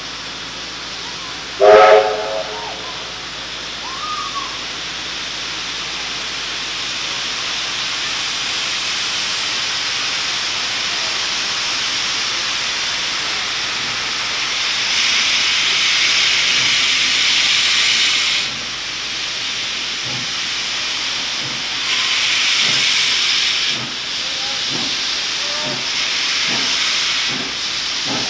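NSWGR C36 class steam locomotive 3642 giving one short, loud whistle blast about two seconds in, then a steady hiss of steam from its cylinder drain cocks and safety valves that swells loudly three times as it starts to pull away.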